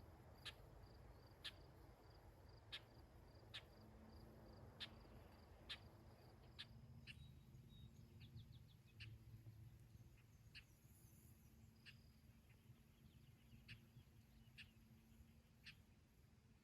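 Faint outdoor ambience: a bird giving a short, sharp call note about once a second, with a brief quick trill partway through, over a low steady background hiss.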